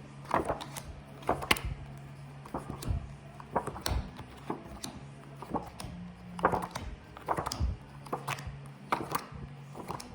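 Phonics flashcards being handled and shown one after another, with irregular soft taps and card flicks, some of them sharper knocks, over a faint steady low hum.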